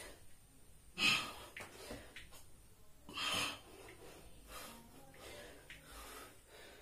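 A man breathing hard from exertion during a workout, with sharp, noisy exhalations; the two loudest come about a second in and a little past three seconds, with fainter breaths between.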